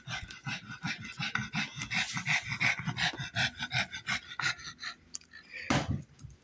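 A small dog panting rapidly close to the microphone, several quick breaths a second.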